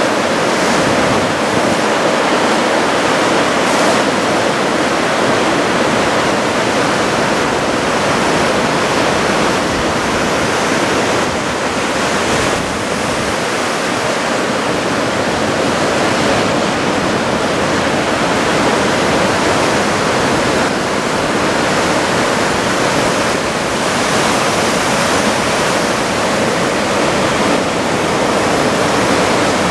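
Big typhoon-swell surf breaking onto the shore, a dense, steady wash of water noise with no gaps.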